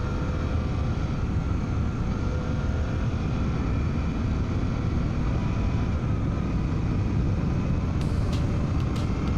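Steady wind rush inside a motorcycle helmet over the 2024 Suzuki V-Strom 800DE's parallel-twin engine running at a steady pace. A few sharp ticks come near the end.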